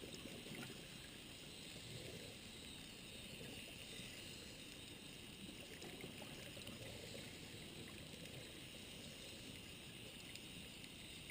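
Faint, steady underwater ambient noise: a low hiss and rumble with a few faint clicks scattered through it.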